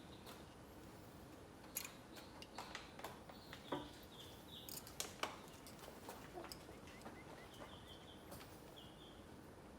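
Faint, irregular small clicks and taps of hands and a tool working a tight rubber seal into a hydraulic brake cylinder, a few sharper knocks through the middle. A few short high chirps sound now and then.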